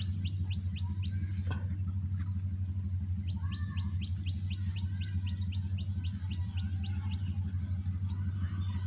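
A bird calls in quick runs of short, high chirps, about four or five a second: a brief run near the start and a longer one from about three seconds in. Softer chirps come in between, all over a steady low hum.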